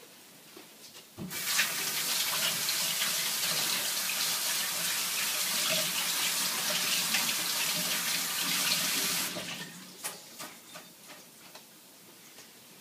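Kitchen tap running at full flow for about eight seconds, turned on abruptly and shut off just as abruptly, followed by a few light clicks and knocks.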